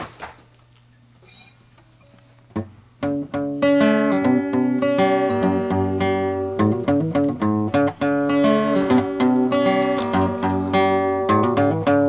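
Acoustic guitar: a single plucked note about two and a half seconds in, then from about three seconds a steady run of picked notes and chords that ring on.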